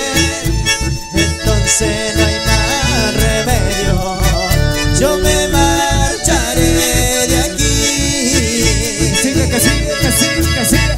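Amplified live dance band playing an instrumental break: a wavering lead melody over a steady bass and drum beat.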